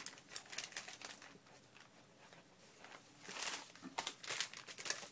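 Sheets of paper being handled and shuffled: a run of light rustles, slides and small taps, with a longer rustle about three and a half seconds in.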